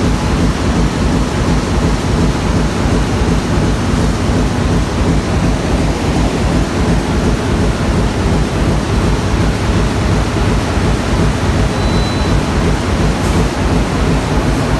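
Bobst DRO 1628 NT corrugated-board converting line running at production speed: a loud, steady mechanical din of the machine feeding and processing board sheets, with a brief faint beep about twelve seconds in.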